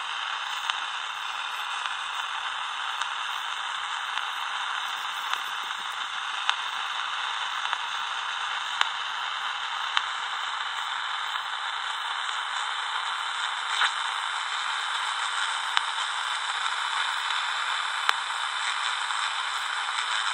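Steady static hiss from the speaker of a Danita 86 six-channel CB radio, with no transmission coming through, broken by a few faint clicks.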